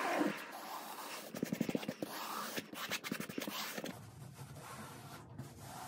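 Hands rubbing and smoothing fibreglass cloth down onto a surfboard blank: a dry, scratchy rubbing in quick, irregular strokes, turning quieter about four seconds in.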